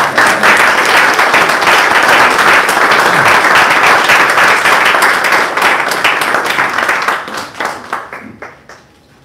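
Congregation applauding, steady for about seven seconds, then dying away.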